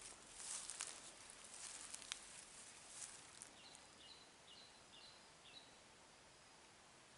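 Faint rustling and crackling of dry leaves and twigs, with scattered small clicks, during the first few seconds. Near the middle come five short, high chirps about half a second apart.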